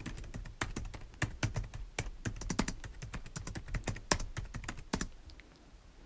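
Typing on a computer keyboard: a run of quick, uneven keystroke clicks that stops about five seconds in.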